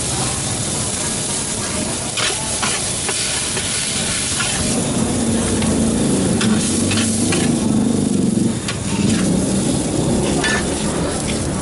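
Noodles sizzling on a large flat frying pan, with scattered clacks and scrapes of a metal spatula on the pan as the noodles are stirred and lifted out. A low rumble rises underneath in the middle.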